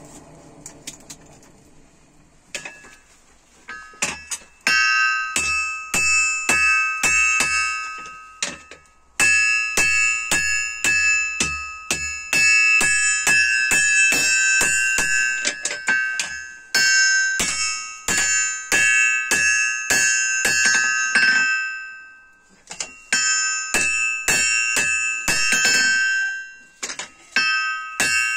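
Hand hammer striking red-hot leaf-spring steel on an anvil, about two to three blows a second. Each blow leaves the anvil ringing. The hammering starts a few seconds in and stops briefly a few times.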